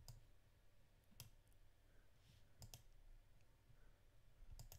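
Near silence: room tone with a few faint, sharp clicks about a second and a half apart.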